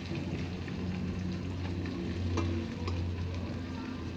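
Pork hocks frying in oil with onions in a metal wok, sizzling steadily as a metal ladle stirs them, with a couple of faint knocks of the ladle on the wok. A steady low hum runs underneath.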